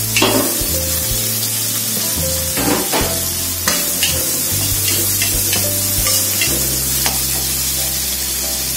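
Onion, chilies and garlic sizzling in hot oil in a wok, stirred with a metal spatula that scrapes and clinks against the pan several times.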